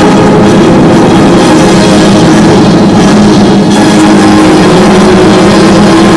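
Show music with held, sustained notes playing loudly over the steady rush of a large indoor waterfall.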